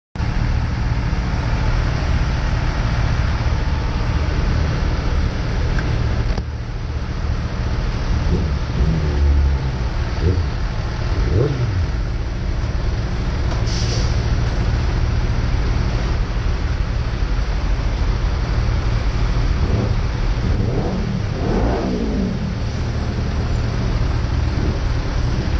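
Engines running together in a ship's vehicle deck: a steady low rumble, with motorcycle engines briefly revving up and dropping back a few times, about a third of the way in and again past two thirds. There is a short hiss about halfway through.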